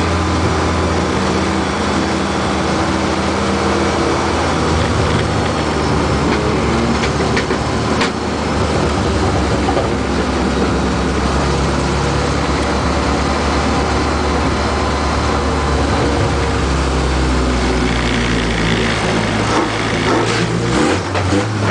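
Engine of a light-truck class racing pickup heard from inside the cab, running steadily at low speed with a low, even drone whose pitch shifts a few times near the end. A few sharp clicks and rattles come through the cab.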